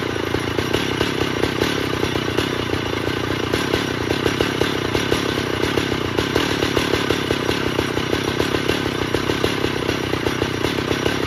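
Stihl 051 AV chainsaw's 89 cc two-stroke engine idling steadily, with no bar or chain fitted.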